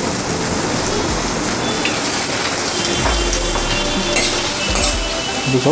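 Onions and green peas sizzling steadily in hot mustard oil in a wok, with soy sauce poured in and a steel spatula stirring, scraping the pan a couple of times in the second half.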